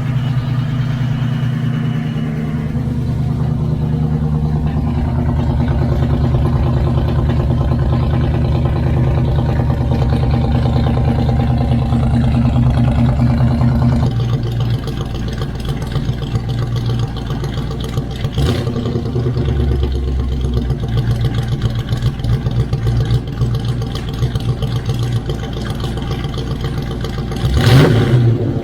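Pushrod engine with link bar lifters idling while it warms up, with a light lifter tick that is way quieter now that oil is getting up into the lifters, though it will never go away entirely. The idle note shifts about halfway through, and a loud burst of noise comes near the end.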